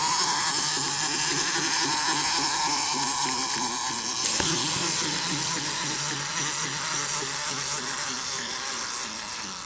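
Two cheap plastic wind-up Minion toys walking, their clockwork spring motors whirring with a fast rattling rhythm that slowly fades as the springs unwind.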